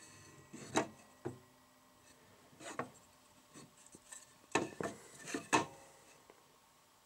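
Wooden strips knocked and slid against a miter saw's table and fence and a wooden jig: about seven short, sharp wooden clacks with some rubbing, loudest about a second in and again past the middle.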